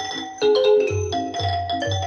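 Recorded music played back over Wilson Audio WATT/Puppy 7 loudspeakers: a melody of short, bright pitched notes over a pulsing bass.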